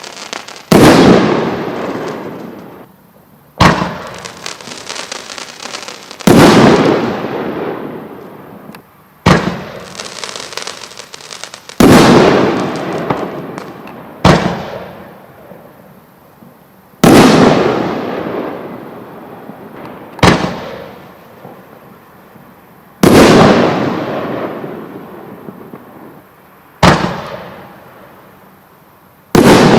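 Fireworks going off: about eleven loud bangs, one every three seconds or so, each fading away slowly in a long echoing rumble. Faint crackling follows some of the bangs.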